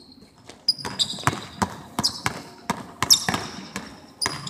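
Basketball bouncing on a hardwood gym floor about three times a second, starting about half a second in, with sneakers squeaking on the court several times. The bounces echo in a large gym.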